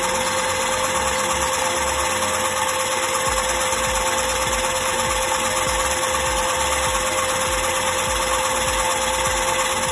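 Homemade syringe piston air compressor driven by a small DC gear motor, running steadily while it pumps air into a balloon: a constant motor whine over an irregular low knocking.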